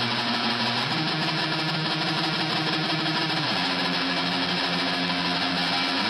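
Ambient electric guitar soundscape: a dense, hissing wash over sustained low notes that change pitch about a second in and slide down a little past the middle.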